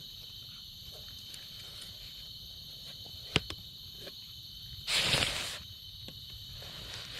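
Steady high drone of insects in the background. A single sharp click a little past three seconds in, and a brief rush of noise just past halfway.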